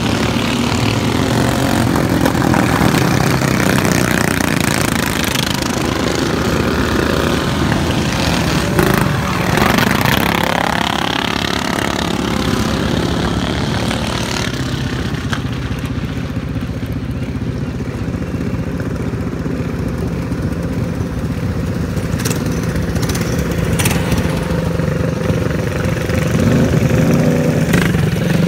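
Engines of several racing riding lawn mowers running hard around a dirt track, their pitch sweeping up and down as they go by. Near the end the mowers pass close and grow louder.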